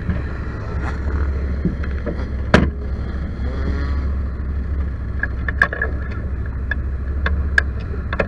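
Off-road vehicle engine idling with a steady low throb. A sharp knock comes about two and a half seconds in, and scattered light clicks follow in the second half.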